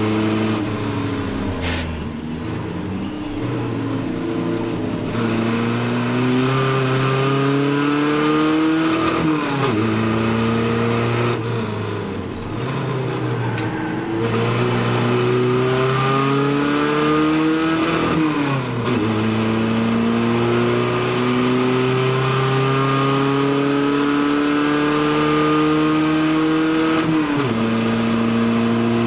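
Chevy LUV race truck's engine heard from inside its stripped cab under racing load, its pitch climbing steadily and dropping back sharply three times as it goes through the gears. Wind and road noise run underneath.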